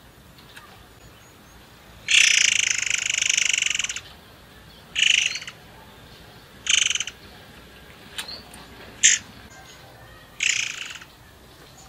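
Caged murai air songbird singing in loud bursts: a long phrase of about two seconds starting about two seconds in, then three shorter phrases a second or so apart, with one short sharp note between the last two.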